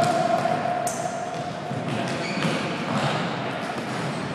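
Soccer balls being kicked and bouncing on a gym's hardwood floor: irregular sharp knocks and thuds, with the ring of a large hall.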